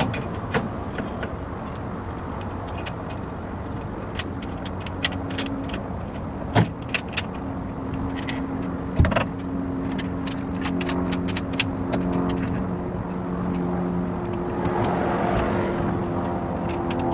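Handling noise as a rooftop-style rod carrier is set onto its mounts and nuts are fitted on the studs: many small metallic clicks and two louder knocks, about six and a half and nine seconds in. Underneath is a steady low rumble with a faint hum.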